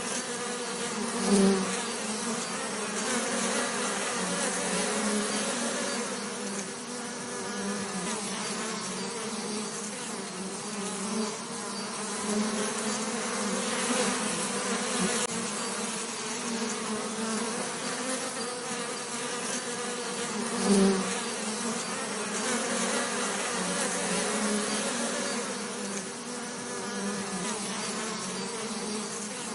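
Bees buzzing in a continuous, steady drone, with two brief louder swells, one near the start and one about two-thirds of the way through.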